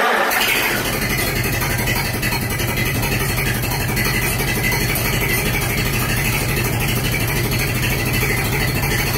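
1947 Farmall H tractor's four-cylinder engine running steadily with a fast, even beat, just after a cold start in sub-freezing temperature.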